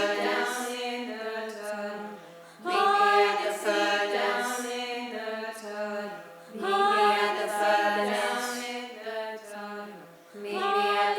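A group of voices singing unaccompanied, in swelling phrases that start about every four seconds over a steady held low note.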